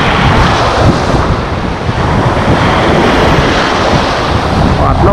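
Strong wind blowing on the microphone over waves breaking on the shore, a loud, steady rush of noise.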